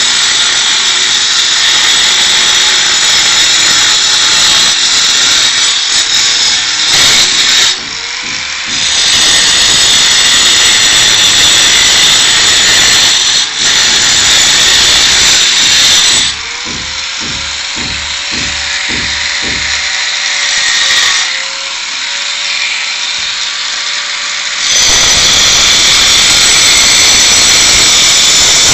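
Handheld angle grinder cutting grooves into cast concrete, loud and steady grinding. About halfway through the disc comes out of the cut for several seconds and the motor runs free with a steady whine and a few quick knocks, then it bites into the concrete again.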